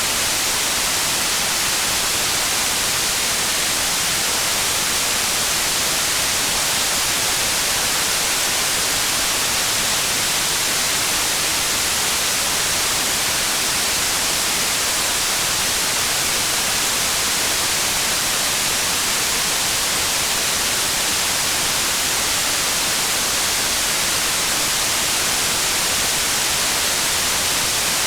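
Steady, even hiss of rain, with no separate drops or thunder standing out.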